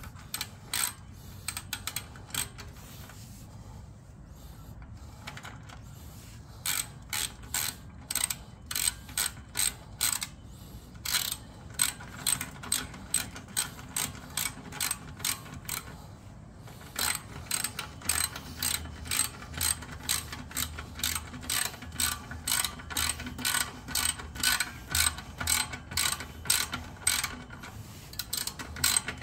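Socket ratchet clicking in runs of quick back-and-forth strokes as it tightens an exhaust clamp bolt, about three clicks a second. There is a pause of a few seconds near the start and a brief one a little past the middle.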